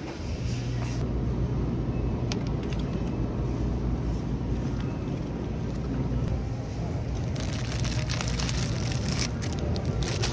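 Grocery store ambience with a steady low hum, with a few light clicks from a plastic shopping basket and its metal handles being carried. Near the end there is a hiss of crinkling plastic as a bagged loaf of bread is handled.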